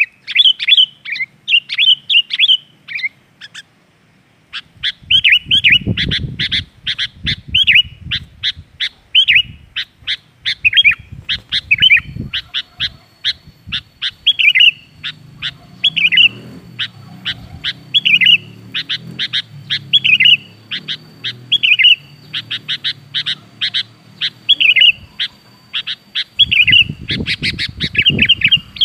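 Sooty-headed bulbul calling: a fast run of short chirping notes, then brief chirping phrases repeated about once a second.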